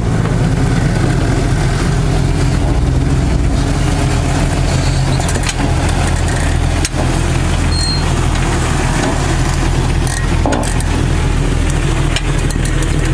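Jeep engine running steadily at low revs, a loud, even low drone with a few brief knocks around the middle.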